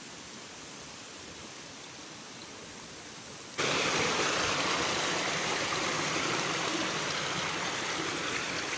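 Steady rush of flowing stream water, faint at first, then suddenly much louder about three and a half seconds in, and staying loud.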